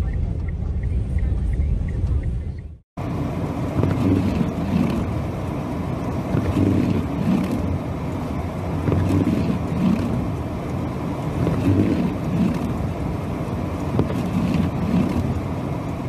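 Blizzard wind rushing around a vehicle, heard from inside it along with the vehicle's running noise: a steady loud rush with gusts that swell and ease every second or so. About three seconds in the sound cuts out briefly and comes back louder.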